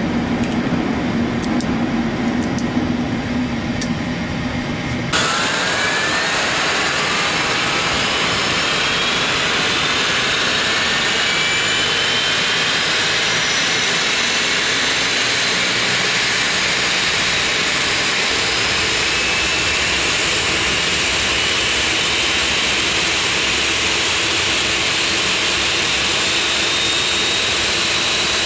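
Boeing 737 turbofan engine starting: a steady rush of air with several whines that climb slowly in pitch as the engine spools up. It begins suddenly about five seconds in, after a steady low cockpit hum.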